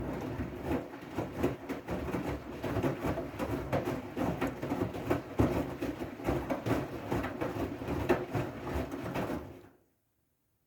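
Siemens i-Dos front-loading washing machine running, a dense stream of irregular knocks and rattles that cuts off abruptly near the end.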